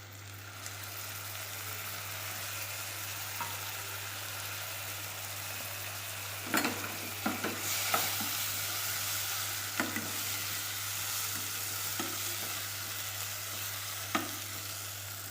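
Onion-tomato masala sizzling in a pan as it is stirred, a spoonful of curd just added to it. A spoon knocks against the pan several times from about the middle on.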